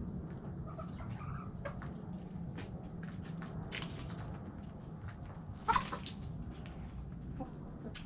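Hens clucking softly, with one louder short squawk just before six seconds in, among many small ticks and taps, over a steady low hum.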